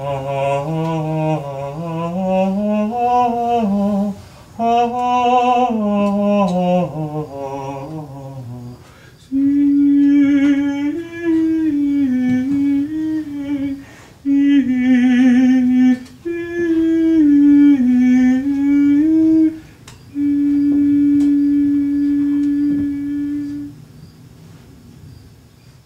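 Wordless humming by performers. A low voice hums slow gliding phrases for about eight seconds, then a higher voice takes over with held notes in several phrases, the last one a long steady tone.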